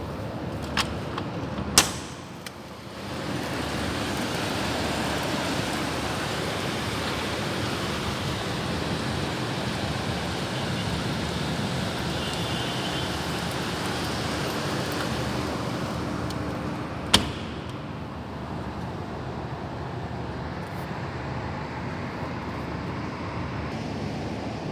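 Storm wind and rain making a steady rushing noise that swells about three seconds in and eases near the end, with a few sharp knocks near the start and one about seventeen seconds in.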